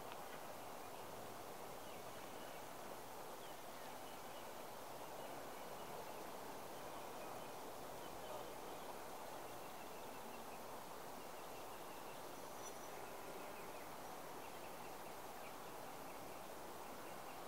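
Quiet outdoor background: a steady faint hiss of ambient noise, with faint high chirps now and then.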